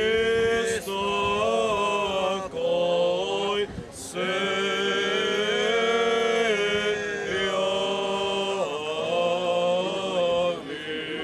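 Male voices singing a slow Orthodox liturgical chant, a hymn of the Blessing of the Waters, in long drawn-out held notes over a steady low drone, pausing briefly for breath twice.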